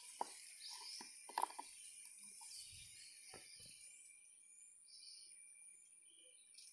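A few faint, light knocks of a plastic funnel and oil bottle being handled at a diesel engine's oil filler neck, the loudest about a second and a half in. Behind them is a steady, faint, high-pitched insect drone.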